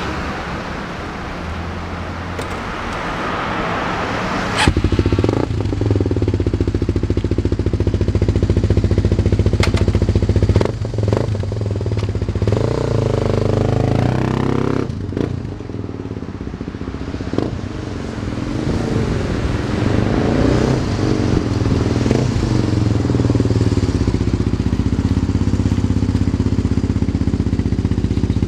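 A 1993 Yamaha TT250R's single-cylinder four-stroke engine, breathing through an OZ Works aftermarket silencer, fires up about four and a half seconds in. It then runs steadily and is revved up and down a few times. The seller describes the engine as running well.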